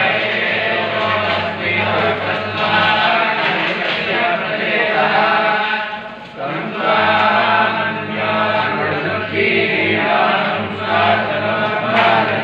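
A group of voices chanting together in unison: the mantra chanting that accompanies a Hindu temple abhisheka. It goes on without a break apart from a short dip about halfway through.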